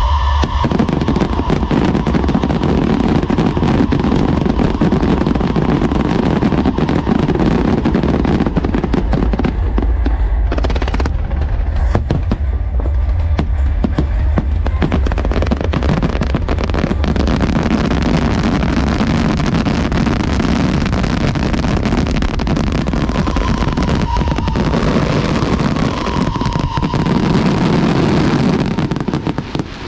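Fireworks display going off continuously in a dense, rapid crackle of bursts, with a couple of brief whistling tones in the later part.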